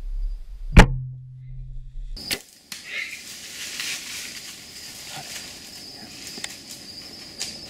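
A bow shot: one sharp snap of the released string about a second in, with a low hum ringing on for a moment before it stops abruptly. After that, a steady high insect drone with rustling and scattered light clicks.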